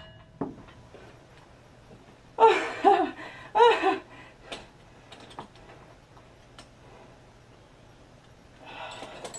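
A person laughing in three short bursts, followed by a few faint clicks and knocks.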